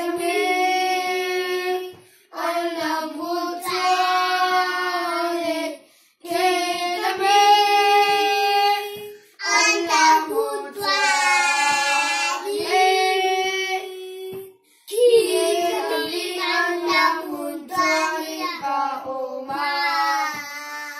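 A small group of young children singing a hymn together, unaccompanied, in long phrases with short pauses for breath between them.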